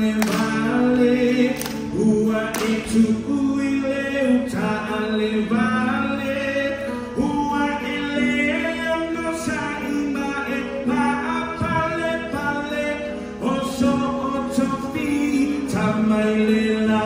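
Live group singing of a Samoan song, men's voices among them, singing together in harmony with long held notes.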